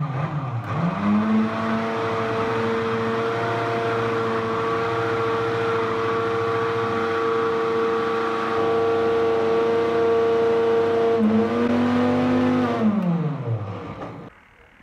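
Electric countertop blender motor blending a protein shake: it spins up with a quick rising whine, runs at a steady high whine for about twelve seconds with a brief dip in pitch near the end, then is switched off and winds down with a falling whine.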